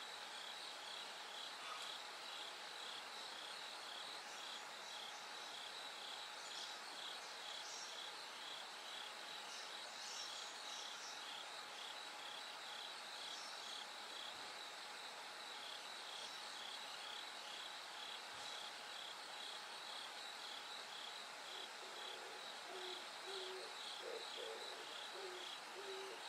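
Bell crickets calling, a steady run of short high ringing chirps repeating evenly. Near the end, a series of low hooting calls joins in.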